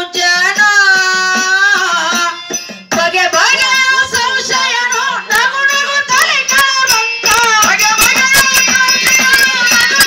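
A woman singing a Kannada devotional bhajan through a microphone, accompanied by a hand drum and sharp percussion strokes. She holds one long note at first, breaks off briefly about three seconds in, then goes on singing.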